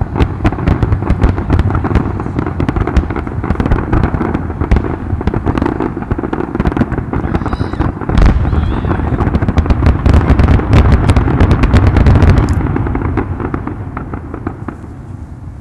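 Fireworks display: a dense, rapid run of overlapping booms and crackling bursts, heaviest in the second half, then dying away over the last few seconds.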